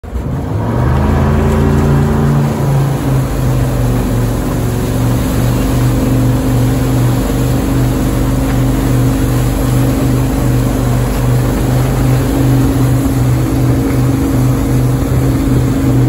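Towboat engine running loud and steady at speed, its note changing in the first couple of seconds as it pulls the rider up, over the rush of water and wind.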